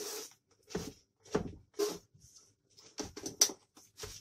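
A soft spatula scraping around the inside rim of a metal springform cake pan in a series of short strokes, loosening the baked cake. A sharp click about three and a half seconds in.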